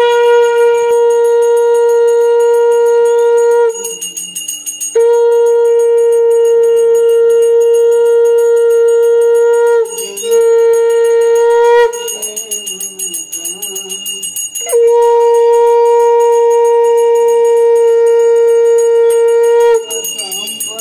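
Conch shell (shankha) blown in long, steady, single-pitched blasts: four in a row, one of them short, with brief breaks between. A brass hand bell rings rapidly throughout. Together they are the ritual sounding that accompanies a puja food offering.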